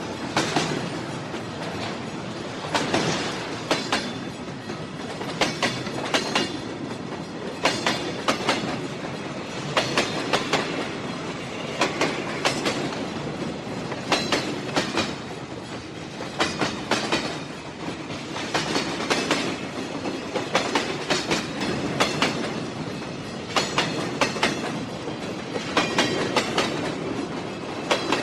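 Train running along the track, its wheels clacking over rail joints in short rapid groups about every two seconds, over a steady rolling rumble.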